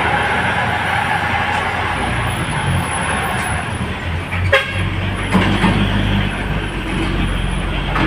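Diesel truck engines running as heavy trucks swing slowly round a steep hairpin bend, a steady low drone over road traffic noise. Two sharp knocks stand out about halfway through.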